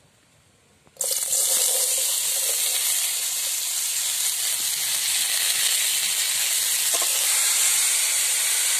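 Shredded kohlrabi frying in hot oil in a kadai: a loud sizzle that starts abruptly about a second in and runs on steadily.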